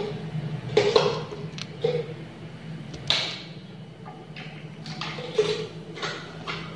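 Aari hook needle punching through cloth stretched taut on an embroidery frame and scooping sugar beads from a plastic lid: a series of short taps and rasps about a second apart, over a low steady hum.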